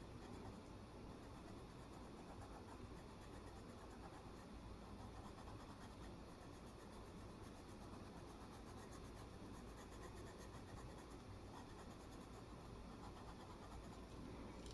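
Faint, continuous scratching of an oil-based coloured pencil shading across a colouring-book page.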